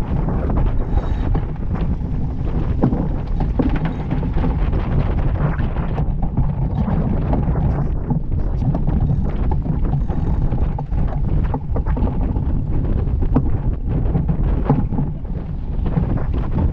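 Strong wind buffeting the microphone over water rushing and splashing along the hull of a Mills 41 racing yacht sailing at speed. A steady, loud rumble with crackling spray noise throughout.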